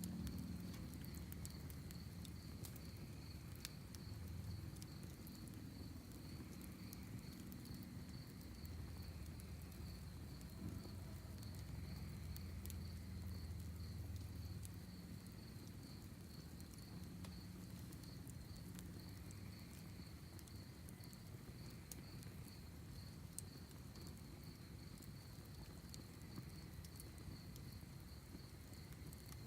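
Crickets chirping steadily in a fast, even, high-pitched pulse, over a fire-pit campfire crackling faintly with scattered small pops and a low rumble.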